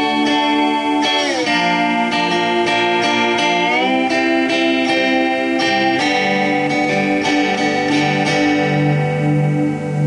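Homemade lap slide guitar with a round metal pan for a body, played with a slide: ringing notes that glide down in pitch about a second in and back up near four seconds, then continue sustained.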